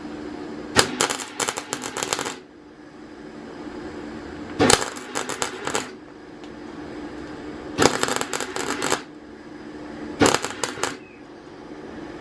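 Gas-shielded 150-amp MIG welder arcing in four short bursts of crackling, each about a second long, as a nut is welded onto a broken exhaust stud so the stud can be turned out.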